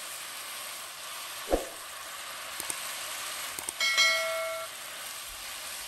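Shredded potato sizzling steadily in oil in a nonstick pan as it is stir-fried with a spatula, with a single knock about one and a half seconds in. About four seconds in, a short chime rings and fades, from a subscribe-button notification sound effect.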